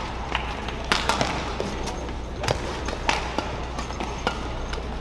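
Badminton rally: racket strings hitting the shuttlecock and players' footwork on the court make several sharp knocks at irregular intervals, over the steady murmur of an indoor arena.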